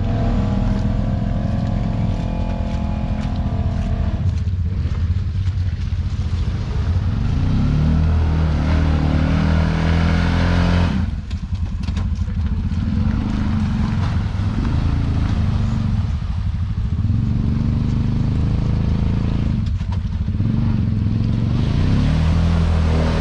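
Side-by-side UTV engine working hard up a muddy, rutted hill climb, its revs rising and falling several times as the driver feeds and eases the throttle.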